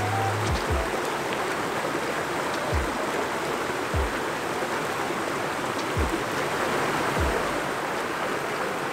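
Flowing water of a small creek running over a shallow riffle, a steady rushing hiss, with a few soft low thumps.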